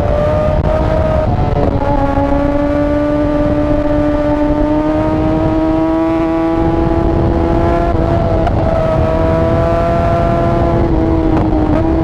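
Yamaha R6 inline-four sport-bike engine running hard at high revs, its note climbing slowly as it pulls. There are short breaks in the note with a step in pitch about a second and a half in, around eight seconds and near the end, as it changes gear.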